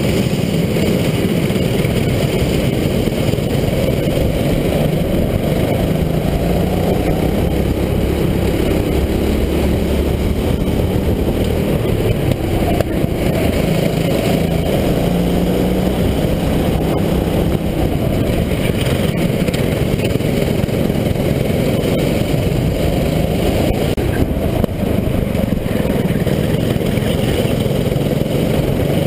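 Rental racing go-kart's engine running hard under the onboard camera, its pitch rising and falling over several seconds as the kart accelerates and slows through the corners.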